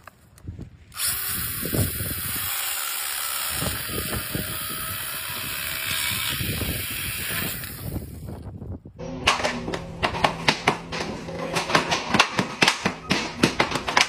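Small Stihl cordless pruning saw running and cutting through a thin log, a steady hissing buzz. It stops about eight and a half seconds in, and a rapid, irregular run of sharp clicks and knocks over a low steady hum follows.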